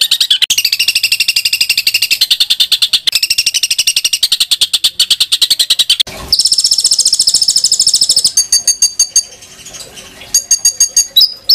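Songbird song made of harsh, rapid trills, many short notes a second. About six seconds in there is a brief break, then a higher trill, and near the end the song turns into separate sharp chirps.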